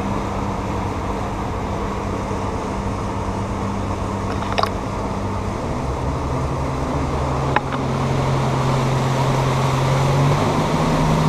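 Outboard motor of a Tracker Targa V18 Combo fishing boat running at low speed, with wind and water rush over the hull. Its steady hum steps up in pitch about halfway through and again near the end as it picks up revs.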